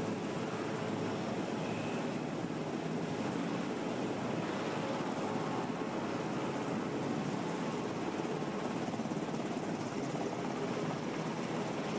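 Aircraft engines running, a steady rushing noise that holds at one level throughout.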